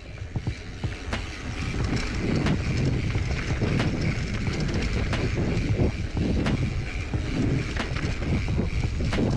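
Mountain bike rolling fast along a dirt singletrack: tyre noise on the dirt and wind on the microphone, with scattered clicks and rattles from the bike over bumps. It grows louder about a second and a half in.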